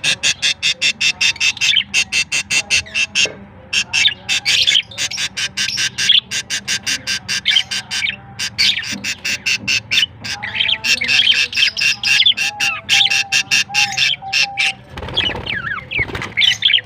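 Budgerigars chirping in fast, evenly repeated runs of about seven chirps a second, broken by short pauses, with a harsher squawk near the end.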